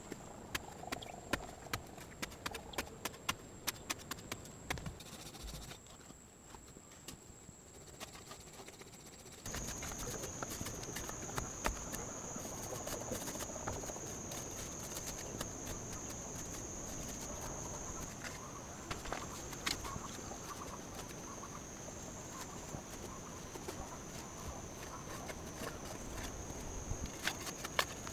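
Hand work in the woods: a quick, irregular run of sharp knocks and clicks over a thin, steady high-pitched tone. About nine and a half seconds in, the sound cuts to a louder, even hiss with only occasional knocks, and the high tone sits slightly lower.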